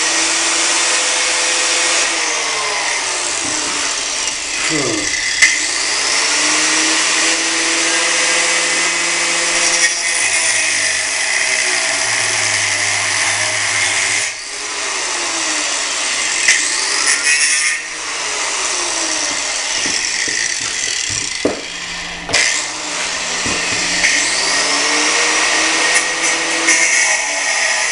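Angle grinder cutting through steel bolt studs, running continuously with its motor note sagging and recovering again and again as the wheel bites into the metal. The level drops briefly a few times.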